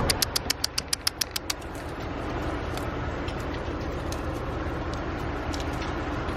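A quick run of about a dozen sharp clicks over the first second and a half, then a steady low rumble.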